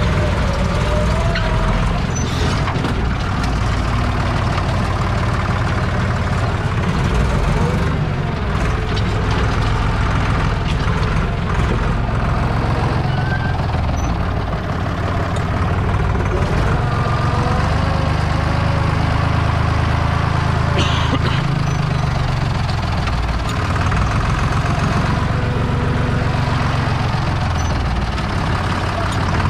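Deutz 5206 tractor's air-cooled diesel engine running steadily, heard from inside its old cab, with faint squeaks and rattles.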